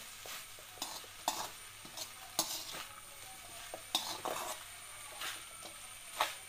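A spatula stirring and scraping ivy gourd stir-fry around an aluminium kadai, in irregular short scrapes and clicks against the pan, over a faint frying sizzle.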